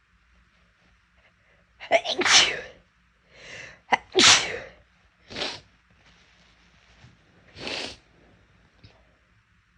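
A person's loud sneezes, brought on deliberately: two big ones about two and four seconds in, then shorter, quieter bursts.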